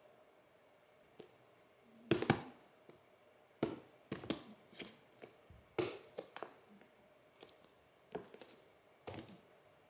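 Cats scuffling against a cardboard box, a kitten batting at its side with its paws: irregular taps, knocks and scratchy rustles that come in short clusters, the loudest about two seconds in.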